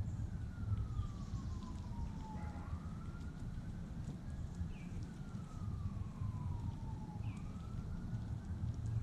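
Emergency vehicle siren wailing, its pitch slowly rising and falling in a cycle of about five seconds, over a steady low rumble. Two short chirps come in around the middle.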